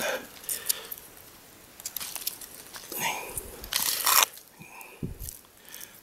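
Dry pine cone scales and pine nuts crunching and crackling in a few short bursts, with soft clicks in between.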